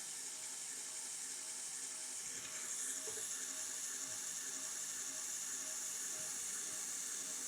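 Knife edge being ground edge-trailing on a roughly 600-grit aluminum oxide belt of a 1x30 belt sander: a steady high hiss of steel on abrasive over a faint motor hum.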